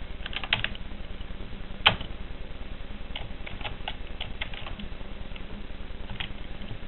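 Computer keyboard typing: short, irregular runs of key clicks, with one louder click about two seconds in, over a steady background hiss.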